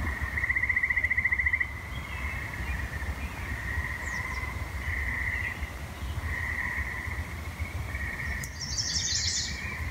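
Outdoor birds calling: a fast trill about half a second in, then repeated chirps at the same pitch and a quick run of high notes near the end, over a steady low rumble.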